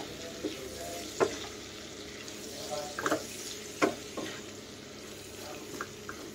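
Cauliflower and radish pieces being stirred with a wooden spatula in a pan of hot mustard oil and spices: a steady soft sizzle, broken by several short, sharp scrapes and knocks of the spatula against the pan.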